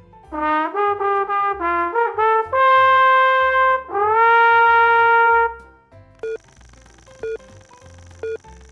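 A trumpet plays a comic phrase: a quick run of short notes, then two long held notes, the second one scooping up into pitch. It is used as a silly stand-in for an animal's voice.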